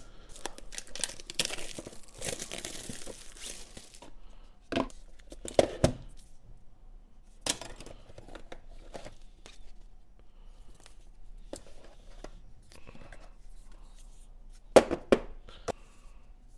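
Plastic shrink wrap crackling as it is torn and peeled off a smartphone box, stopping about four seconds in. Then scattered taps, knocks and rustles of cardboard and plastic as the box is opened and its contents handled, with two sharp knocks near the end.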